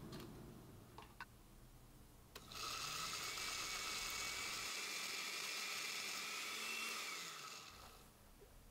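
Electric countertop blender with a glass jar chopping pineapple chunks. A few light clicks come first, and then the motor starts about two and a half seconds in. It runs steadily with a whine for about five seconds, and the pitch rises slightly before it winds down near the end.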